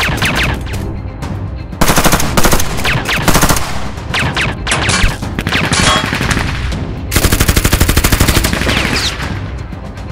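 Film gunfire sound effects: two long bursts of rapid automatic fire, the first about two seconds in and the second about seven seconds in, with scattered single shots between, over a music score.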